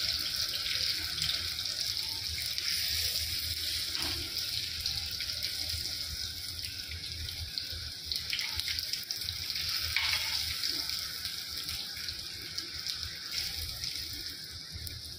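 A steady hiss of running noise, like water from a tap or a kitchen fan. Faint short knocks come about four, eight and ten seconds in.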